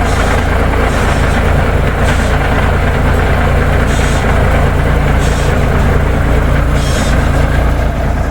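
Big Cam Cummins inline-six diesel in a Peterbilt truck running steadily at an even speed, with a few short hisses now and then.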